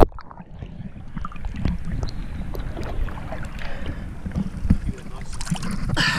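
Water slapping and sloshing against a small motorboat's hull right by the camera, with some wind on the microphone and irregular knocks; a brief louder burst of splashy noise near the end.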